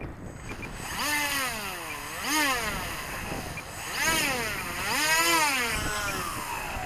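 RC airplane's motor and propeller whine as it flies overhead. The pitch swings up and down twice in long swells, then falls away near the end.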